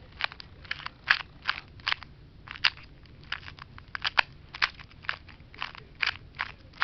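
A 2x2 Rubik's Cube being twisted layer by layer, its plastic pieces clicking and rasping at each turn, about two to three turns a second.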